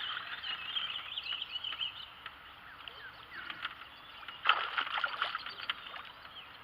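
Water splashing as a hooked largemouth bass is fought on the line, with a loud splash about four and a half seconds in. Birds chirp in the background.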